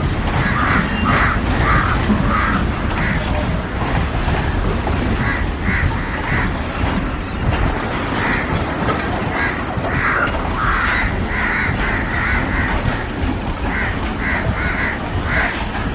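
Loaded freight train rolling past with a steady rumble and clatter of wagons, while crows caw again and again. A thin high squeal comes and goes.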